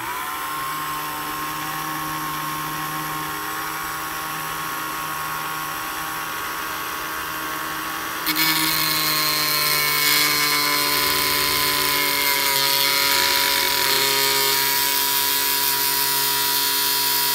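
Ryobi ONE+ cordless rotary tool running steadily with a high whine through its flexible shaft. About eight seconds in, its small disc is pressed against a steel piece and the sound turns louder and harsher with grinding. The disc only scratches the metal.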